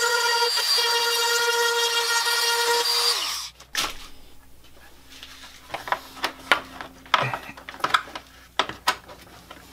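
Corded rotary tool running with a steady high-pitched whine, switched off about three seconds in and winding down. Then come scattered light clicks and knocks as rubber radiator hose pieces are handled.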